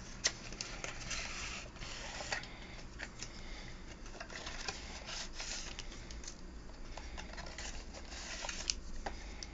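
A small cardboard retail box being opened by hand: scraping and rustling of cardboard and paper packaging, with several sharp clicks as the flaps and insert are handled.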